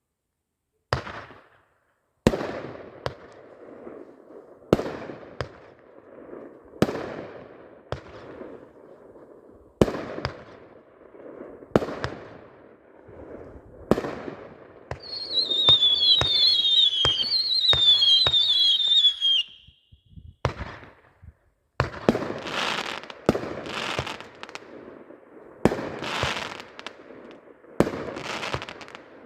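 Raccoon Fireworks Football Maniac consumer firework cake firing, a sharp shot and burst every second or two. About halfway through, several falling whistles overlap for a few seconds. Near the end come denser, longer bursts.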